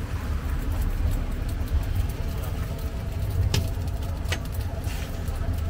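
Steady low rumble of street traffic, with two sharp clicks a little over halfway through.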